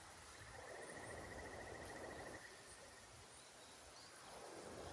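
Quiet riverside ambience: an insect's high, rapidly pulsing trill for about two seconds from just after the start, over a faint wash of flowing water.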